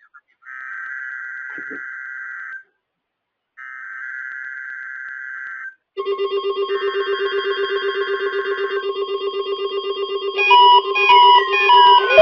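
Three buzzy digital data bursts of Emergency Alert System SAME header tones, each about two seconds long with a second's gap between them. From about six seconds in, a loud pulsing electronic chord of steady tones sounds under the third burst, and near the end stepping tones and sliding pitches join it.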